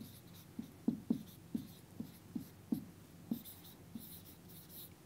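Felt-tip marker writing on a whiteboard: about ten short squeaky strokes as words are written out by hand.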